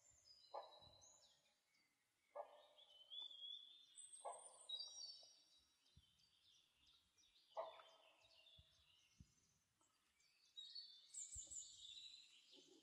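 Faint forest bird calls: thin, high whistles and chirps from small birds, with a short lower call heard four times.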